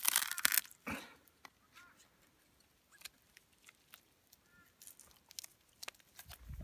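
A red deer's lower hind leg being broken apart by hand and cut with a knife: a crackling, tearing burst as the joint is bent open, a second short crackle a moment later, then scattered small clicks and scrapes as the blade cuts through sinew.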